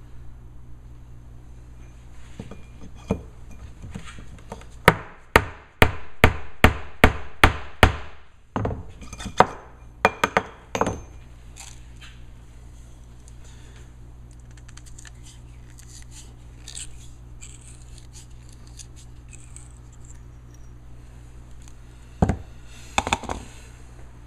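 A run of sharp mallet blows on a ram over a rocket-tooling spindle, about two or three a second for some three seconds, followed by a few more scattered knocks and then two or three more near the end.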